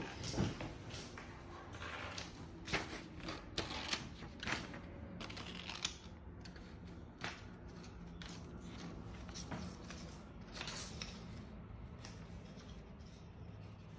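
Small scissors snipping through a sheet of paper, cutting it in half, with irregular snips and paper rustling, busier in the first half.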